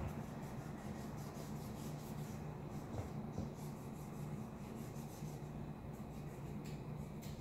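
Felt-tip marker scribbling back and forth on paper, filling in a colored area with many short strokes, over a low steady hum.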